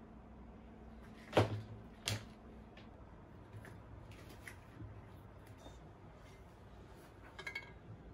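Two sharp knocks of a heavy glass vase set down on a desk, followed by faint taps and rustles while tulip stems are arranged in it. A short light clink near the end.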